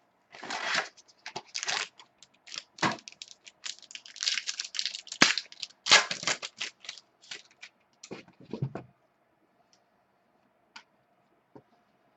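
A sealed trading-card box and its packaging being torn and opened by hand, with bursts of crinkling, tearing and sharp clicks that stop about nine seconds in.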